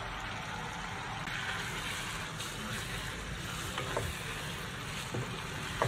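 Red chili sambal sizzling and frying in a nonstick wok while a wooden spatula stirs it, with a few light knocks of the spatula against the pan in the second half.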